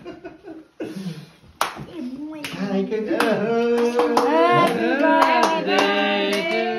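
A group of people singing together with hand clapping. A few claps come first, and the singing starts about two and a half seconds in with long, held notes.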